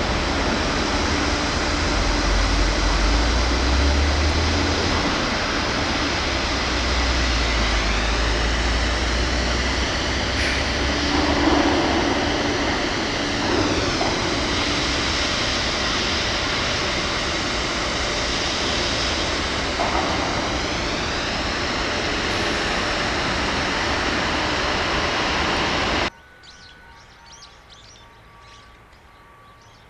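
Loud, steady rushing noise of a passing vehicle, with a deep rumble in the first few seconds. It cuts off suddenly near the end, leaving faint bird chirps.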